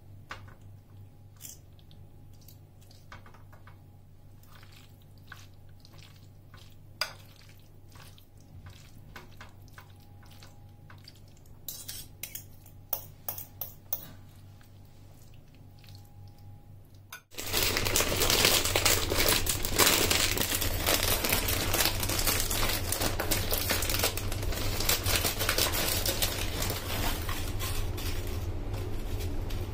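Spoons clinking and scraping against a glass baking dish as bow-tie pasta is tipped in from a steel colander and stirred, with a few sharp clinks close together just past the middle. About two-thirds of the way in it gives way suddenly to loud, continuous crinkling and rattling of tortilla chips being shaken out of a snack bag into a glass bowl.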